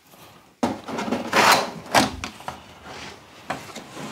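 Clattering and scraping of a cat box trap being handled while it is set up for a trial, with a couple of sharper knocks about a second and a half and two seconds in.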